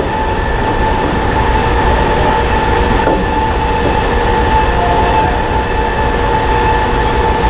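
Loud, steady drone of running shop machinery, with several high, steady whining tones over it.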